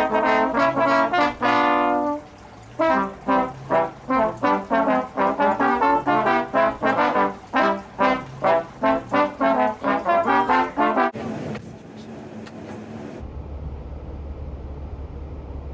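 Trombone played loudly: a long held note, then a fast run of short, punchy notes. It cuts off suddenly about eleven seconds in, giving way to a steady low rumble.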